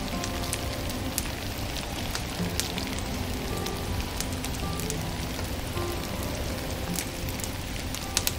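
Wood fire in a stove crackling, with sharp scattered pops over a steady pattering hiss. Soft, slow music notes run underneath.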